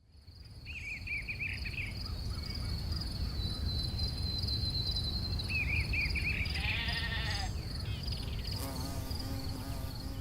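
Countryside ambience fading in: birds chirp in short bursts over a steady insect drone and a low wind rumble. A sheep bleats twice, around 7 seconds in and again near the end.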